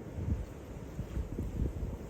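Strong gusty wind buffeting the microphone: a low rumbling rush that rises and falls in uneven gusts.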